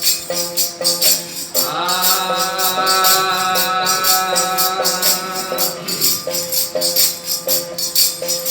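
Instrumental passage of Hindi devotional bhajan music, with steady jingling hand percussion keeping the beat under a repeated melody. A long held note enters about one and a half seconds in and fades after about four seconds.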